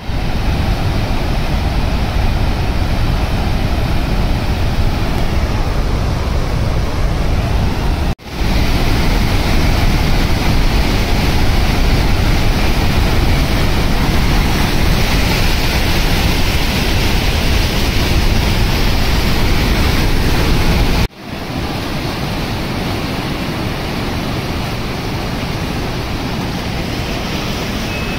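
Muddy floodwater pouring over a dam's spillway and churning below it: a loud, steady rush of water with a deep rumble. It breaks off for an instant about eight seconds in and again about twenty-one seconds in; after the second break it is the slightly quieter rush of a swollen river, with less rumble.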